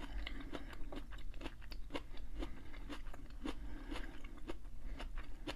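A person chewing a mouthful of hibachi food, with a steady run of short wet clicks about three times a second.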